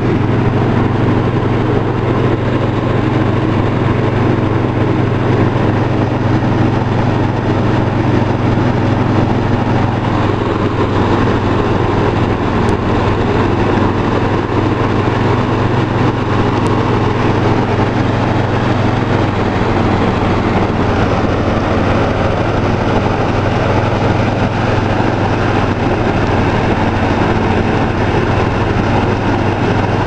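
Engine-driven rice thresher running steadily and loudly, a constant low hum with a noisy rush over it as straw and grain pass through the machine.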